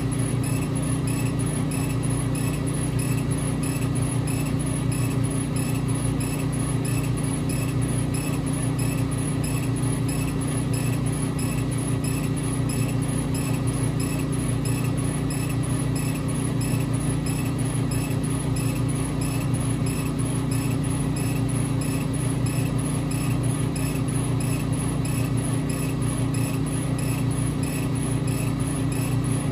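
Epilog Fusion M2 40 laser cutter running while it raster-engraves a wooden sign: a steady machine hum with a faint repeating tick about twice a second.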